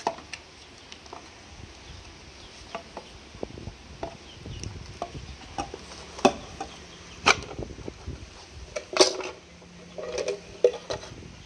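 Plastic housing of a Tenda O1 outdoor CPE being handled and pried apart: scattered clicks and knocks of hard plastic, with a few sharper snaps in the second half as the case opens and the circuit board slides out.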